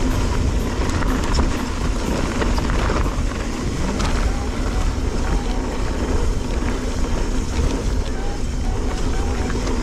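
Wind buffeting the action camera's microphone and tyres rumbling over a dirt trail as a mountain bike is ridden, with a steady low rush and scattered small clicks and rattles.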